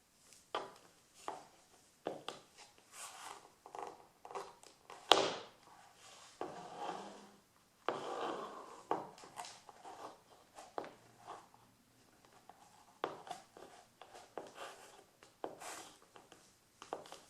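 Stiletto heels of leather court shoes clicking and scraping on a parquet floor in irregular taps, with one sharp, much louder click about five seconds in and a longer scuffing sound around seven to nine seconds.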